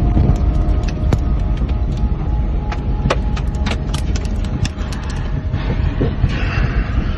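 Handling noise of a phone jostled inside a car: a heavy rumble with many sharp clicks and knocks, and a faint steady tone underneath.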